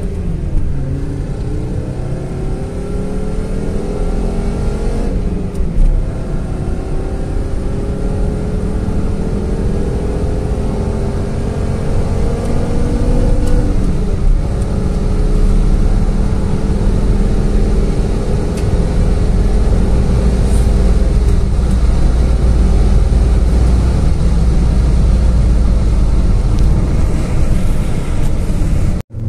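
Fiat Marea's five-cylinder Fivetech engine pulling under light throttle. Its note rises, drops at a gear change about five seconds in, rises again until a second shift around fourteen seconds, then holds steady at cruise.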